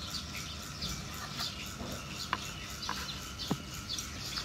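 Background animal chirping: short high chirps repeating about three times a second, with a few faint sharp clicks in the middle.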